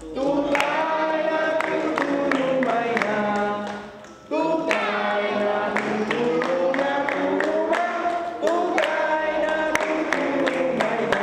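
A group of children singing a song together, unaccompanied, with hand clapping; the singing breaks off briefly about four seconds in and then resumes.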